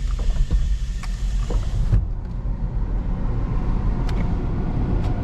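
Buick Rainier SUV idling, heard from inside the cabin, with the air-conditioning blower running. A steady low rumble runs throughout, a high hiss cuts off abruptly about two seconds in, and there are a few light clicks.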